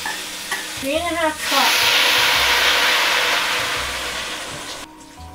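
Hot seared beef chunks and their pan juices hitting a hot steel pot of potatoes and carrots, sizzling loudly for about three seconds and then dying down.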